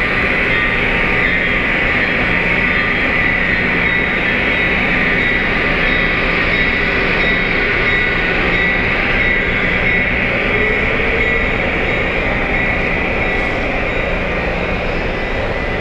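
Lionel O-gauge model train with four ES44AC diesel locomotives and an Evolution hybrid running past at close range on three-rail track, making a steady running and rolling noise.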